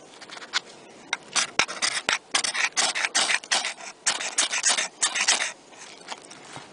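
Ferro rod scraped hard with a metal striker, a run of short rasping strokes at about three or four a second that stops about five and a half seconds in.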